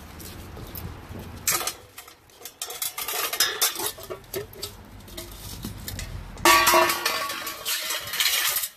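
Metal kitchen tongs clinking and scraping as puppies bite and tug at a frozen fish half held in them, with scattered clicks. There is a louder scrape about a second and a half in, and a longer, louder stretch from about six and a half seconds to the end that has a pitched squeal in it.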